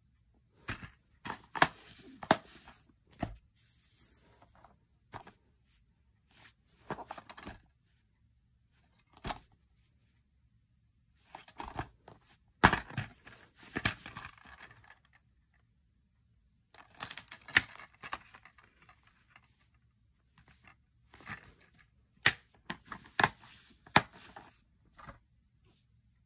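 Plastic DVD cases being handled: irregular bursts of clicking, snapping and rustling, with several sharp clicks among them and silent gaps between.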